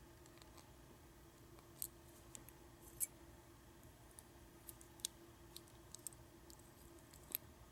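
Faint, scattered small clicks of tweezers and lock pins being handled from a rekeying pin kit, about eight separate ticks over a faint steady hum.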